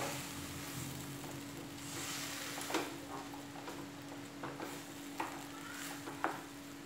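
Wooden spatula stirring bread crumbs cooking in milk in a non-stick kadai, with a steady sizzle from the mixture and three sharp knocks of the spatula against the pan. A low steady hum runs underneath.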